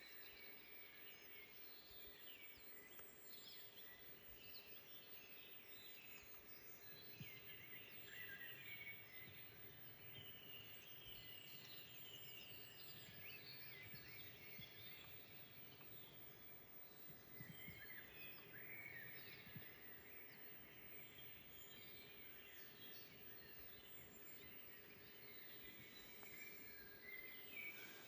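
Faint forest birdsong: several birds chirping and trilling in overlapping short phrases, with a steady low background hiss.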